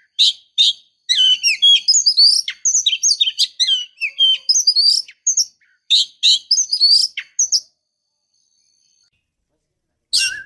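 Female oriental magpie-robin (kacer betina) in breeding condition calling to draw males: a dense run of short, high whistled chirps and trills. It cuts off abruptly about three-quarters of the way in and starts again just before the end.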